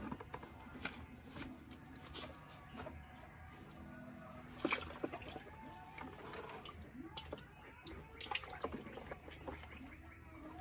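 Faint bird or fowl calls with scattered sharp clicks and taps; the loudest tap comes a little before halfway.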